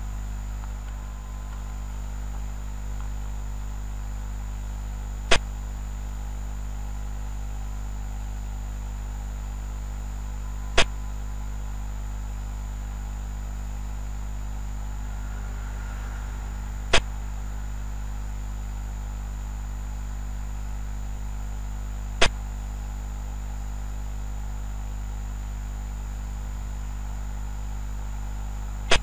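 Steady low electrical hum with a sharp click about every five and a half seconds, four times: the move sound of a xiangqi (Chinese chess) game replay, one click as each piece is placed.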